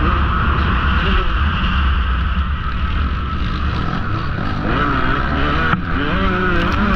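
2017 KTM XC-W 150's two-stroke single-cylinder engine running hard under race throttle, heard from the rider's helmet, its pitch rising and falling with the throttle. Near the end it drops out for a moment, then the revs climb again.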